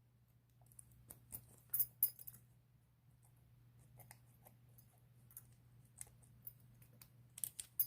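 Light, scattered metallic clicks and clinks of a small vintage Ilco half-ball padlock and its picking tools being handled, with a few quick clicks near 2 s and another run near the end.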